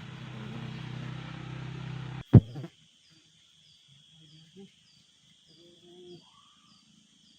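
A steady low droning hum cuts off abruptly with a loud click about two seconds in. Night insects remain: a steady high trill with evenly spaced chirps, and a few faint low calls.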